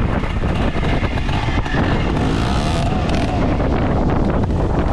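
Trials motorcycle engine running on a rocky climb, its revs rising and falling as the rider blips the throttle, with wind buffeting the microphone.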